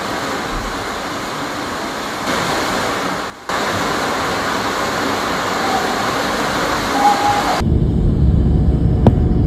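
Muddy floodwater rushing in a fast torrent, a loud, steady rush of water. The sound breaks off briefly about three and a half seconds in, and turns to a deeper, heavier rush for the last two seconds.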